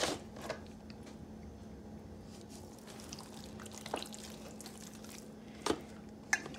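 Hands rubbing olive oil over raw pork spare ribs in a foil pan: quiet wet handling with a few brief sharp taps, the last two in the final second as the oil bottle is handled. A faint steady hum underneath.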